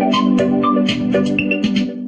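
Realme smartphone ringtone playing: a quick melody of short, bright struck notes, about six a second, over held low chords.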